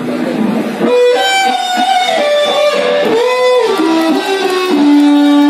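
Amplified electric guitar playing a lead phrase of sliding, bent notes during a band sound check, settling on a long held note near the end.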